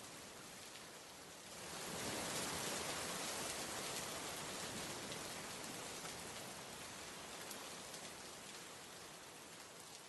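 Steady rain falling, growing louder about two seconds in and then slowly easing off.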